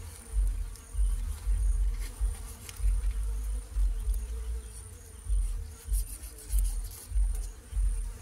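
A steady high insect trill over irregular low rumbling thumps of wind buffeting the microphone, with a few faint clicks as a knife works through the lungfish.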